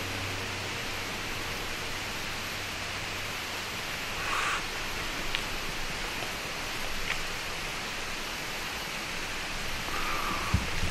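Steady hiss of background noise, with a few faint clicks, a brief rustle about four seconds in and a low thump near the end.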